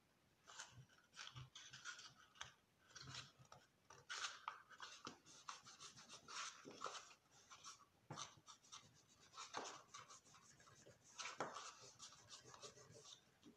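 Faint, irregular rustling and scraping of paper and card as hands press a folded origami paper insert into a small kraft-card box.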